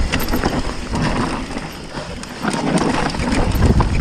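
Mountain bike riding fast down a dirt forest trail: tyres rumbling over roots and ground, with the bike clattering and rattling over the bumps. It gets louder about two and a half seconds in.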